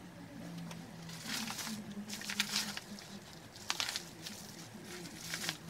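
Padded paper mailer envelope being handled, rustling and crinkling in several short bursts over a faint low steady hum.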